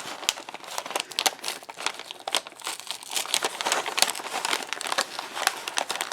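Wrapping paper crinkling and rustling as it is unwrapped by hand, with many quick, irregular crackles.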